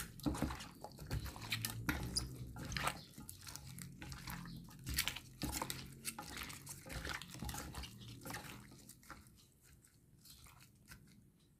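Raw chicken pieces being squeezed and turned by a gloved hand in soy sauce marinade: irregular wet squishing with small clicks and crackles, thinning out and fading about nine seconds in.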